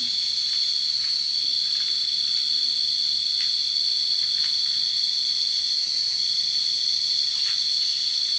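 Steady, high-pitched insect chorus trilling continuously in several pitches at once; one of the voices drops out briefly twice.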